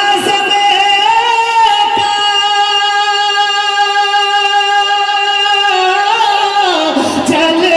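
Male voice singing a naat into a microphone, holding one long steady note for about six seconds before the melody moves on near the end.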